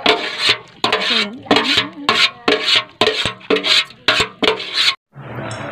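Repeated rasping, scraping strokes, about two to three a second, which stop abruptly near the end.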